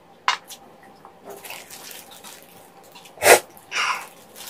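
Wet eating and handling sounds from saucy chicken feet and rice cakes, including squelching as a plastic-gloved hand digs into the thick sauce. There is a small click near the start and one loud wet smack a little past three seconds in.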